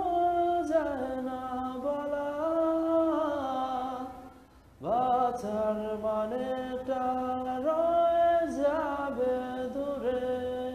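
A man singing unaccompanied, holding long notes of a slow melody that steps from pitch to pitch, with a short breath pause about four seconds in and a fade near the end.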